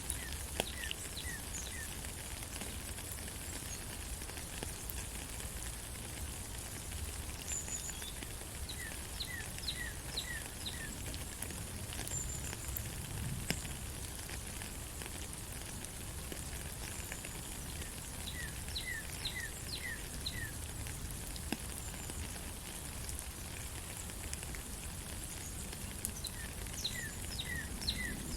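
Steady rain falling in a forest, with a bird singing a short phrase of four or five quick chirps, repeated about every eight or nine seconds.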